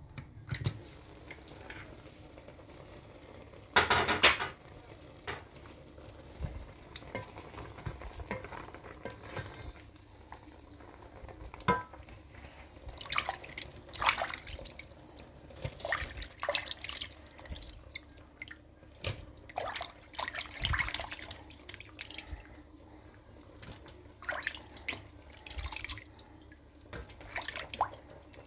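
A hand sloshing and squeezing soaked dried fish in a bowl of water, with irregular splashes and drips; the loudest splash comes about four seconds in.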